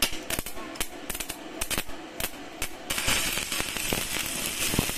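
Stick (MMA) welding arc from a mini DC inverter welder burning a 12-gauge electrode on steel plate: irregular sharp pops and cracks as the arc is struck, then from about three seconds in a steady crackling hiss as the arc holds and burns.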